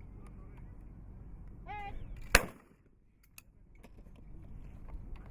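A trap shooter's short call for the target, then about half a second later a single loud shotgun shot at a clay.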